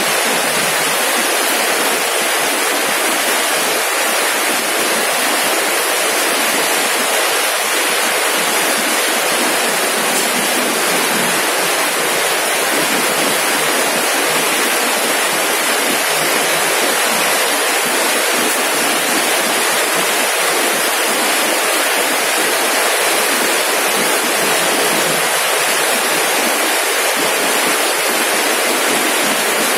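Steady, unbroken rushing noise, spread evenly from mid to very high pitches with little bass, and no change or separate events.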